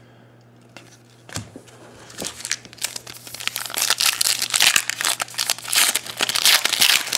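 Foil wrapper of a Donruss Elite football card pack being crinkled and torn open by hand. It starts with a few light clicks and builds to loud, dense crinkling in the second half.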